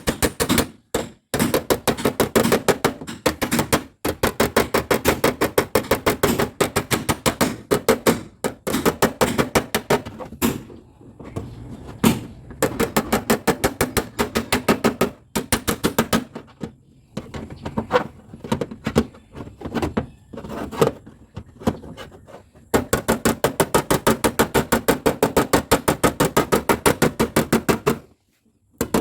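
Rapid hammer blows on a car's dented body metal, about five a second in long runs with short pauses: the crumpled inner frame member and fender being knocked back into shape.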